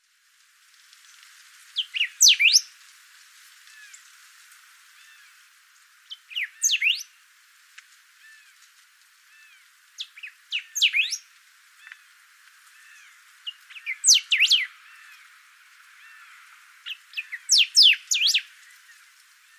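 Saltator singing: five loud phrases about four seconds apart, each a quick run of sweeping notes. Faint chirps of other birds carry on between the phrases.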